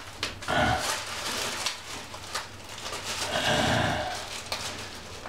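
Thin plastic drop-cloth sheeting rustling and crinkling as it is handled and pressed up against the ceiling, in two stretches, about half a second in and again near four seconds.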